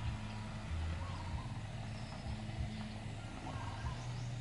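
Car driving slowly, heard from inside the cabin: a low, steady engine hum over road noise.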